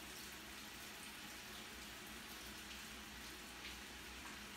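Faint, steady water running from a kitchen tap as beans are rinsed in the sink.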